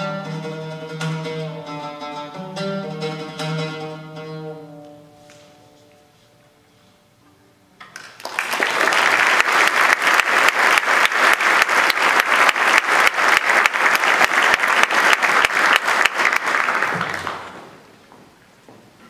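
Arab ensemble music of ouds, qanun and strings, fading out about five seconds in. After a short pause, audience applause starts about eight seconds in and dies away near the end.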